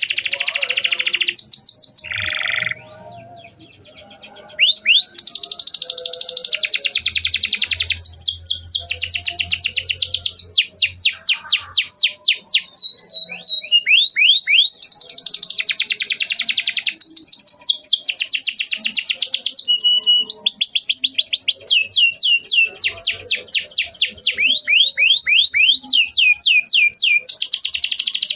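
Domestic canary singing long, fast trills of rapidly repeated rising chirps, broken by a short pause about three seconds in.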